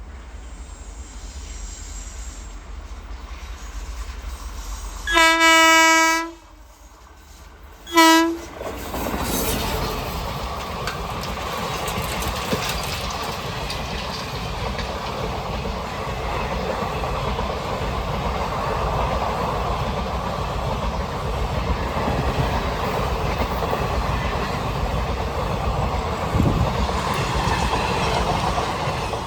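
An Indian train approaches and sounds its single-note horn: one long blast, then a short one about two seconds later. The train then runs close past, with a steady rumble and the clatter of wheels on the rails.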